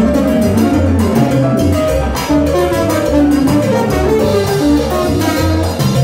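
Live salsa band playing an instrumental passage: congas, timbales and trombone over keyboard and bass notes, with a steady driving beat.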